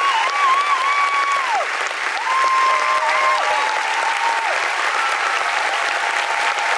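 Large concert audience applauding, with long, wavering whistles over the clapping.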